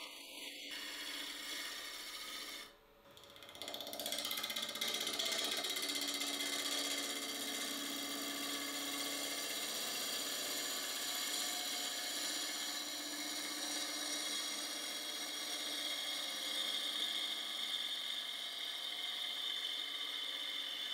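A turning gouge cutting a spinning manzanita burl on a wood lathe: a steady, rapid rasping as shavings come off the tool edge, broken briefly about three seconds in.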